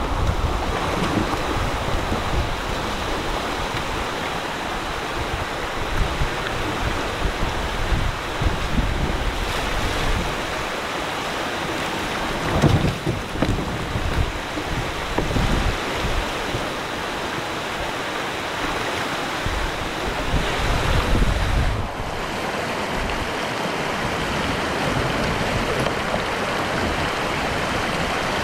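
Shallow river water rushing over rock ledges in a riffle, a steady rush. Wind buffets the microphone in low gusts, strongest around halfway through and again just before an abrupt change about three-quarters of the way in.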